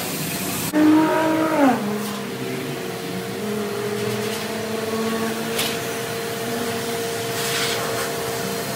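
Vacuum cleaner motor running with a steady whine. Just under a second in it surges louder, and a whine drops in pitch over about a second before settling back to a steady hum.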